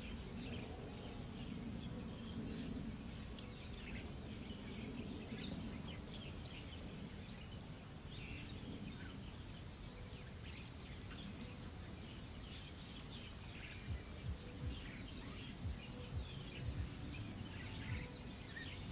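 Small birds chirping and twittering off and on over a steady low rumble, with a few soft low thumps in the last few seconds.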